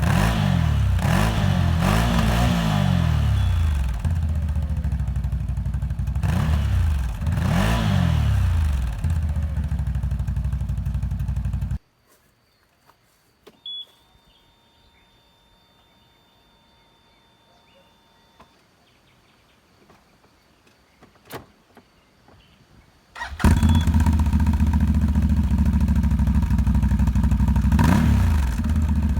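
2021 CFMOTO CForce 1000 ATV's V-twin engine idling and being blipped, its pitch rising and falling in short revs. It cuts off suddenly. About ten seconds of near quiet follow, with a few faint clicks and a short beep. Then the engine is abruptly running again and revved once more near the end.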